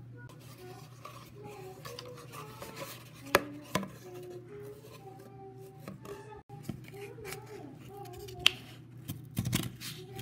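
Scissors snipping through a cardboard tube, a quick run of cuts near the end, after a few single sharp taps. A soft tune plays throughout.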